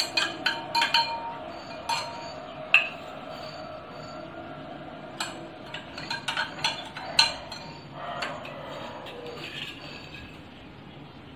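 Metal spoon clinking against steel bowls and a drinking glass as salt is scooped and added to water, in irregular light clinks and taps.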